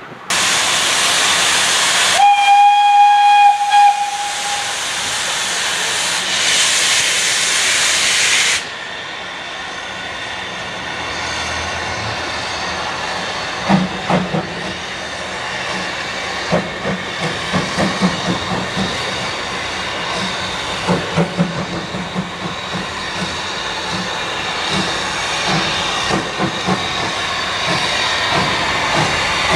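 Steam locomotive blowing off a loud hiss of steam, with one whistle blast of about two and a half seconds starting about two seconds in. The loud hiss cuts off sharply after about eight and a half seconds. A quieter steady hiss carries on, with scattered knocks and clanks as the engine draws closer.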